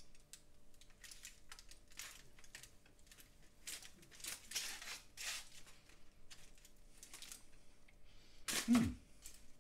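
A chef's knife sawing through the crunchy end of a homemade doner kebab meat loaf on a wooden chopping board, with aluminium foil crinkling underneath: a run of irregular scraping, crackling strokes, and a short louder sound near the end.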